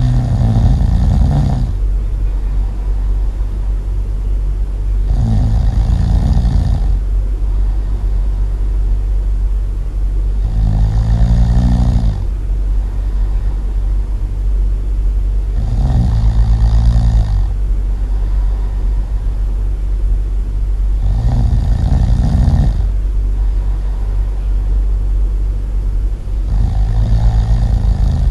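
Really loud, slow snoring: six long snores, one about every five and a half seconds, over a steady low rumble.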